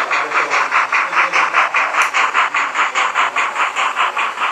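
HO-scale model Polish steam locomotive's onboard sound chuffing rapidly and evenly, about eight chuffs a second, as the train runs past.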